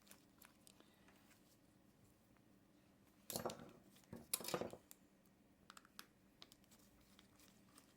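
Faint small clicks and taps of a precision screwdriver and hands working on the bezel screws of a G-Shock watch, with two louder brief handling sounds about three and four and a half seconds in.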